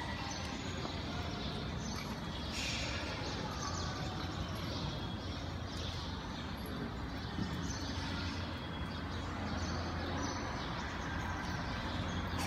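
Steady room ambience of a large hall: a constant low hum under an even background noise, with no distinct event standing out.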